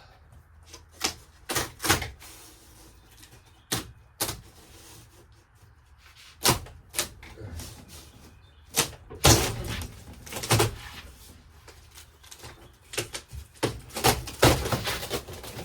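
Irregular sharp knocks and taps of hand work on a camper's interior wall paneling, with a denser run of clatter about nine to eleven seconds in and again near the end.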